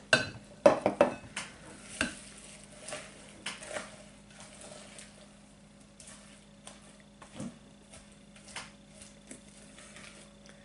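A spatula folding sliced almonds into thick cake batter in a glass mixing bowl. There are a few sharp knocks against the bowl in the first two seconds, then soft scraping and stirring with occasional light taps.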